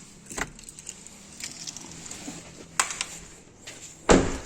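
A few light clicks and rattles, then the VinFast Fadil's car door is shut with one heavy thud near the end.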